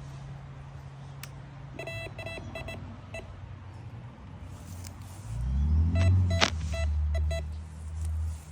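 Metal detector giving runs of short, quick beeps, about two seconds in and again about six seconds in. Under the second run a loud low hum swells in about five seconds in.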